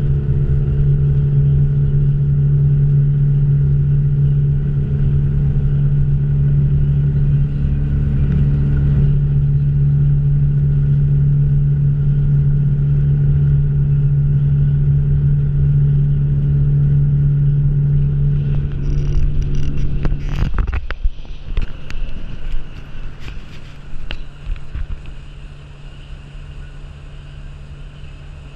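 Motorboat engine running steadily at cruising speed with a deep, even hum. About two-thirds of the way through it suddenly drops to a quieter, lower running, with a few sharp knocks as it changes.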